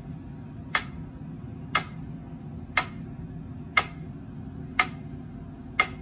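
Guitar amplifier's steady hum with a sharp click repeating evenly about once a second.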